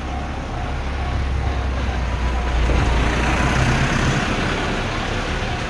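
A train passing a Japanese railroad crossing: a rush of wheel and rail noise over a deep rumble swells to a peak about three seconds in and then eases. The crossing's alarm bell rings about twice a second; it is drowned out by the passing train in the middle and comes back near the end.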